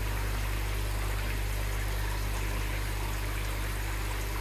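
Aquarium water trickling steadily, with a constant low hum underneath.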